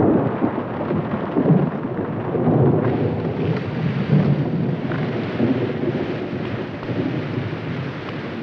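Thunderstorm: a sudden loud crack of thunder at the start, then thunder rumbling on under heavy rain. The rain's hiss grows brighter about three seconds in.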